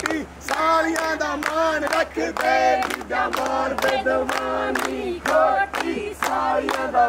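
A group of voices singing and calling out loudly together over steady rhythmic hand-clapping, about two claps a second.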